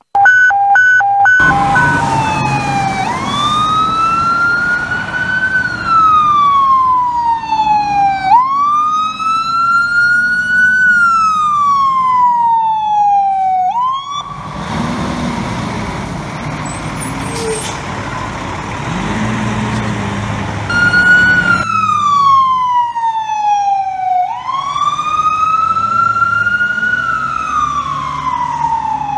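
Fire engine's Whelen 295 electronic siren sounding a wail, its pitch climbing and falling slowly in cycles of about five seconds, with the truck's engine rumbling underneath. A few short pitched blasts sound right at the start, and the wail gives way to a steadier tone for a while in the middle as the truck passes.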